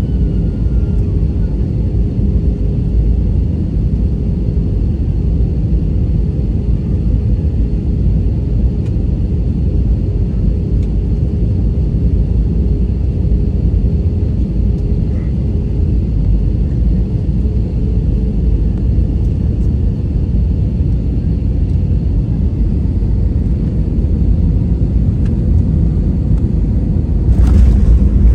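Airbus A320-family jet heard from inside the cabin on final approach: a steady engine and airflow rumble with a faint steady hum. Near the end there is a sudden jolt and a louder rumble as the wheels touch down on the runway.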